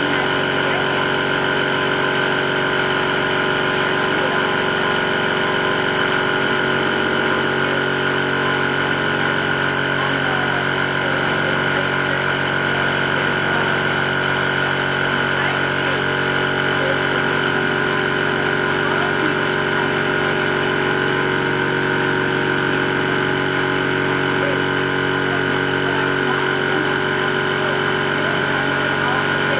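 Portable electric two-stage reciprocating high-pressure PCP air compressor running steadily under load while filling an air cylinder, a constant mechanical hum with a steady whine.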